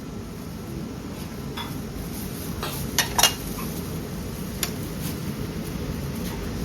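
Crockery and cutlery clinking a few times, with a sharp double clink about three seconds in and another clink a little later, over steady low background noise.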